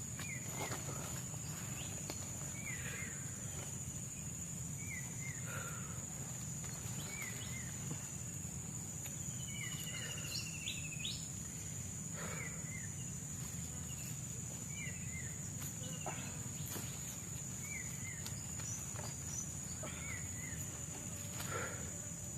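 Tropical forest ambience: a steady high-pitched insect drone, with a bird repeating a short two-note call about every two seconds. There are a few faint knocks or rustles.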